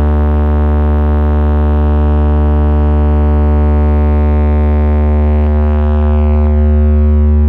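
A loud, held synthesizer drone with heavy bass, sustained without a break and played through a large stacked DJ speaker system with horn tweeters.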